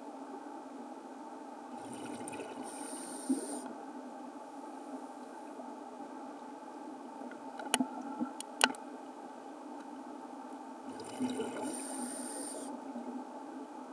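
Scuba regulator exhaust: a diver breathes out twice, about nine seconds apart, each time a short rush of bubbling over a steady low underwater hum. A few sharp clicks come in between.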